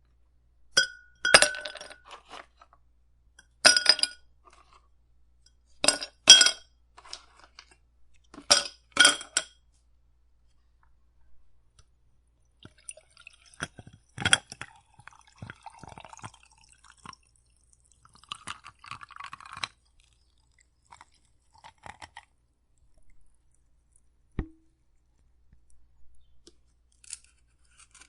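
Ice cubes dropped into a drinking glass, clinking sharply against it in four bursts over the first ten seconds. Water is then poured in over the ice, with quieter splashing and crackling and one more sharp clink, and a few faint clinks of settling ice near the end.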